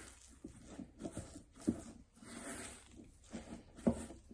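Silicone spatula mixing a thick, sticky legume-flour dough in a stainless steel bowl: soft irregular scraping and sticky squelching, with a couple of light knocks against the bowl.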